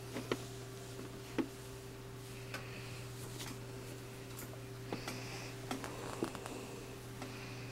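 Husky puppies licking and mouthing a hand: scattered small wet clicks and smacks, over a steady low hum.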